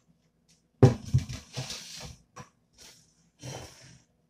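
Stainless-steel steamer pot being handled: a sharp metal clank about a second in, then rattling and scraping of the metal parts, a few light knocks and another short scrape near the end.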